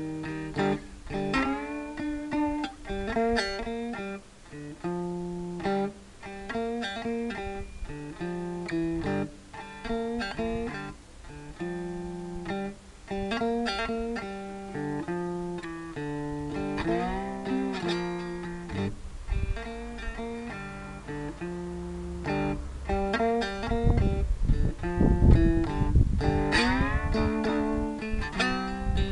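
Cigar box guitar made from a Penamil cigar box, played through a small amplifier: single notes and chords picked one after another, some notes gliding in pitch. The playing gets louder and fuller in the last few seconds.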